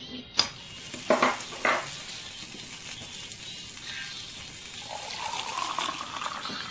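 A steady sizzling hiss with three sharp knocks in the first two seconds, then liquid poured from a steel tumbler into a mug from about five seconds in, its pitch rising as the mug fills.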